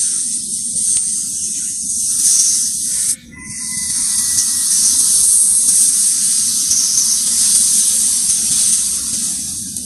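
Cobra hissing: a loud, steady hiss that breaks off sharply for a moment about three seconds in, then resumes.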